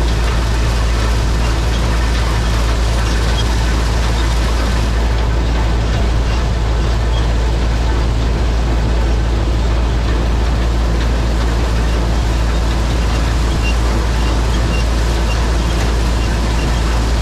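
New Holland TR99 combine's six-cylinder turbo engine and threshing machinery running steadily while harvesting soybeans, a constant deep rumble under an even mechanical roar.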